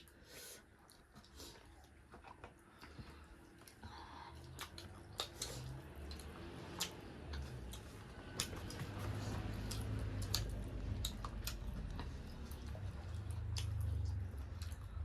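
Close-up chewing of food: crisp crunches and wet squishing, with scattered sharp clicks, growing louder after the first few seconds.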